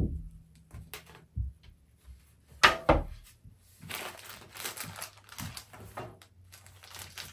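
Knocks and handling noise from flat-pack shelf parts, wooden arch frames and white panels, being moved and bumped together. There is a loud knock about three seconds in, then a couple of seconds of rustling and light clicking as the parts are handled.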